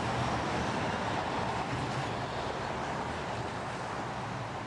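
A small car running on pavement, its engine and tyres steady and slowly fading as it slows to pull over.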